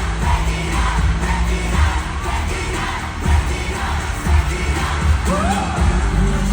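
A K-pop song with a sung melody over a steady heavy bass beat, played loud through an arena sound system.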